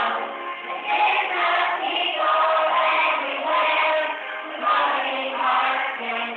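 A group of children singing together in phrases of held notes.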